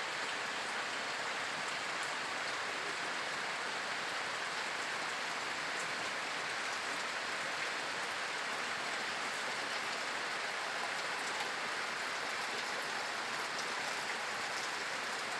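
Steady heavy monsoon rain falling, an even hiss with faint patter of drops on surfaces.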